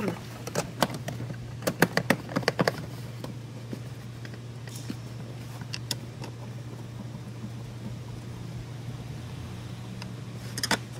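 Sharp clicks and light knocks of plastic trim parts and a screwdriver being handled in a car's footwell, most of them in the first few seconds and a short cluster near the end, over a steady low hum.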